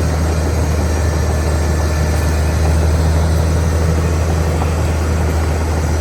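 Caterpillar D6R XL bulldozer's diesel engine running steadily with a constant low drone.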